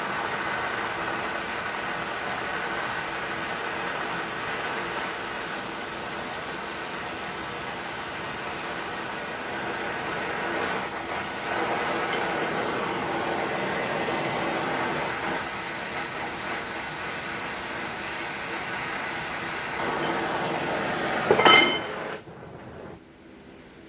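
A steady workshop tool running with a continuous hiss-like noise. It stops near the end with a sharp metallic clink.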